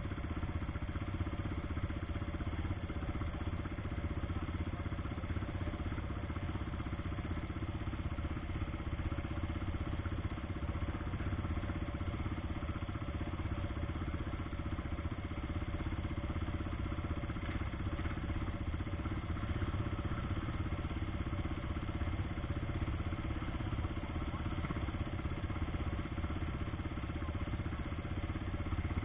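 ATV (quad bike) engines idling steadily while the quads stand stopped.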